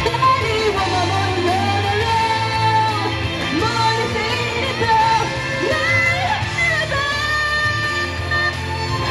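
A singer performing into a handheld microphone over a recorded pop backing track with bass and guitar.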